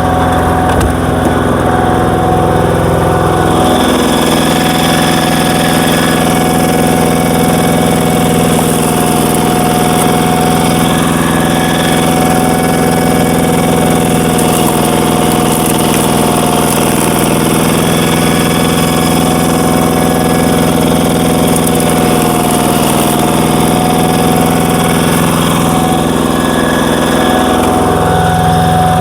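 Power tiller's single-cylinder diesel engine running steadily while it drives a screw log splitter. Its tone changes about three and a half seconds in and changes back near the end.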